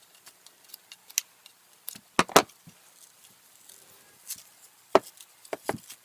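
Scissors snipping tangled hair off a vacuum cleaner's brush bar. Several short, sharp snips and clicks come at irregular intervals, including two close together about two seconds in and a few more near the end.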